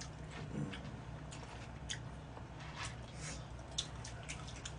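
Eating sounds: chewing and scattered small clicks of forks and spoons against plastic takeout containers, over a low steady hum.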